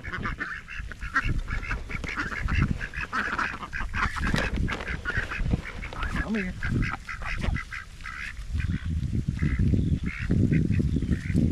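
A group of domestic ducks quacking and chattering in quick, short calls. A low rumble joins in the last few seconds.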